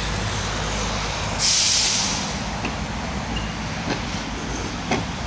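Steady low traffic rumble, with a loud, short hiss about a second and a half in and a few faint knocks near the end.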